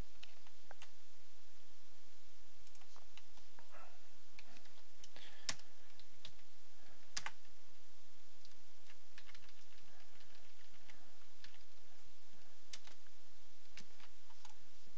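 Scattered, irregular clicks of a computer mouse and keyboard, a few sharper clicks standing out about five and seven seconds in.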